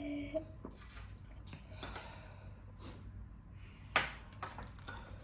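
Scattered light clinks and knocks of utensils and dishes during a noodle meal, with one sharper knock about four seconds in.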